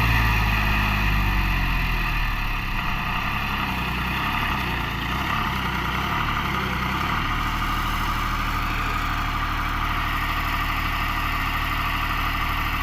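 John Deere 5103 tractor's three-cylinder diesel engine running, its note easing down over the first few seconds and then holding steady.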